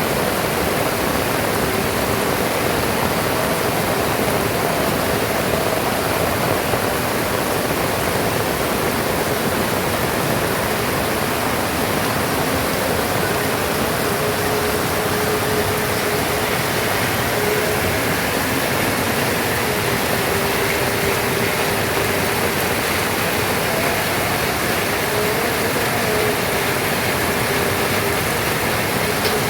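Heavy rain pouring down in a steady, even rush, with a faint wavering hum underneath.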